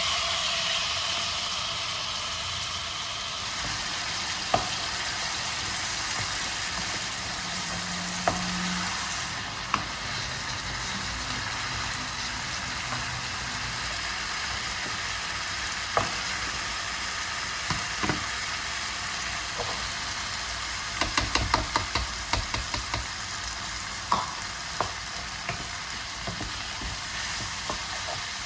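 Food sizzling in a frying pan, a steady hiss, with scattered sharp clicks of a utensil against the pan and a quick run of clicks partway through as it is stirred.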